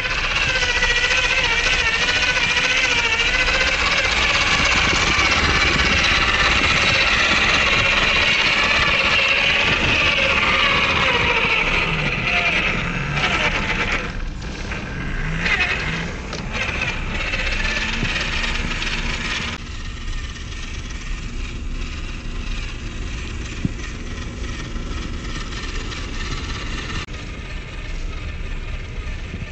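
WPL C74 radio-controlled crawler's small electric motor and two-speed geared drivetrain whining under throttle, its pitch wavering as it crawls through snow. The sound changes abruptly about two-thirds of the way through.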